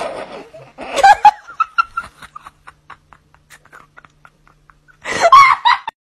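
A person laughing hard, trailing off into a run of short, fading 'ha' pulses, then laughing loudly again near the end.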